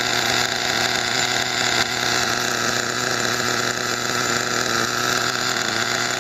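Redcat Racing Earthquake 3.5's .21 nitro engine idling steadily during break-in. It is idling high and running rich on its factory break-in settings.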